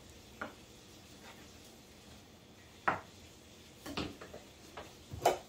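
A few scattered clinks and knocks of kitchen utensils and dishes, spread out irregularly. The loudest comes about three seconds in, with another near the end.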